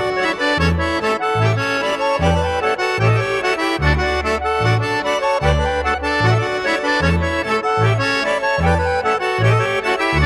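Background music: an accordion-led traditional folk tune, its melody running over bass notes that alternate in a steady beat.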